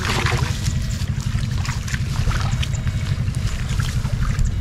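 Water splashing and trickling in short bursts as hands and legs work through a flooded rice paddy, over a continuous fluttering low rumble.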